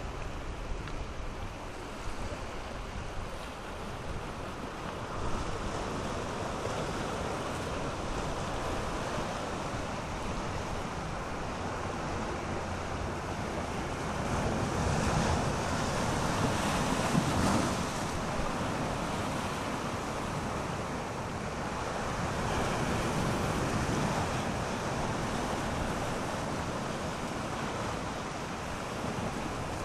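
Sea waves surging and breaking over rocks at the shoreline, a continuous rush that swells loudest about halfway through, with wind buffeting the microphone.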